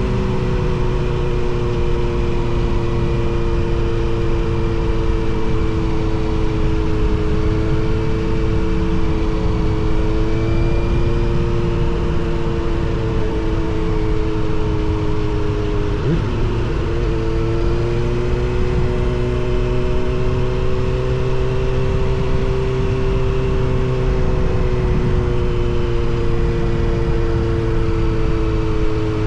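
Motorcycle engines running at steady cruising revs under way, with a low wind and road rumble beneath. The revs dip briefly and pick up again about sixteen seconds in.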